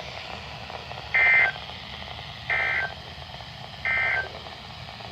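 Three short two-tone digital data bursts, about a second apart, over steady radio hiss, played through a Midland WR-100 weather radio's speaker. They are the Emergency Alert System end-of-message code (NNNN) sent three times, and they mark the end of a NOAA Weather Radio Required Weekly Test broadcast.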